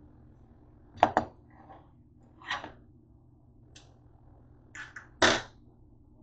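Dishware being handled on a kitchen counter: a plate and fork knocking and clinking. Two sharp knocks come about a second in, a few softer clicks follow, and the loudest, slightly longer knock comes near the end.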